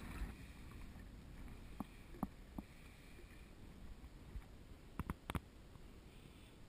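A hooked fish splashing faintly at the surface at the start, then low wind and water noise with a few light clicks and knocks, four of them in a quick cluster about five seconds in.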